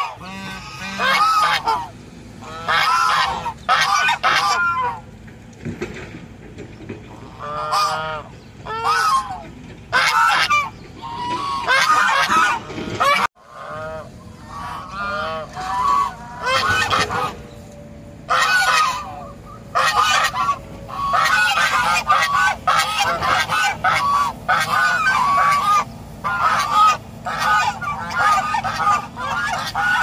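A flock of Chinese geese honking, several birds calling over one another in runs of loud honks with short gaps between them.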